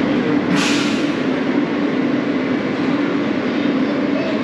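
PATH subway train running: a steady rumble with a constant hum, and a short hiss about half a second in.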